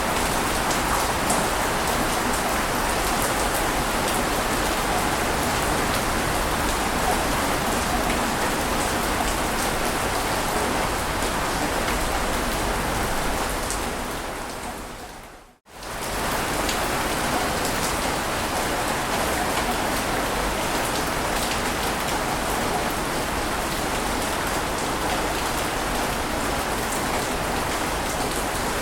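Steady rushing water noise, even and without swells. About fourteen seconds in it fades quickly to near silence and comes straight back up: a splice where the ambience track loops.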